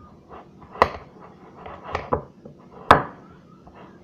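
A spoon stirring a thick mixture in a bowl, knocking against the side of the bowl about four times with scraping in between.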